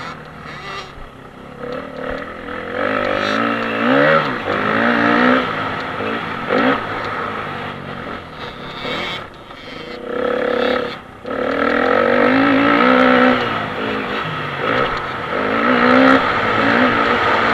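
Dirt bike engine under hard acceleration on a dirt track, its pitch climbing over and over as it is shifted up through the gears, with two short drops in revs where the throttle is closed. Steady wind rush on the onboard camera underneath.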